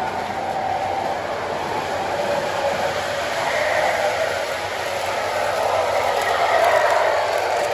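MTH O-gauge model subway trains running on their track, a steady whir of motors and wheels rolling on the rails, growing louder about six seconds in as a train comes round the curve toward the camera.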